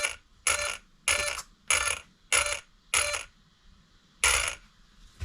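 RC car steering servo whirring in short bursts as the steering is worked back and forth from the transmitter, with no horn fitted: seven quick buzzes about every half second or so, the last after a short pause.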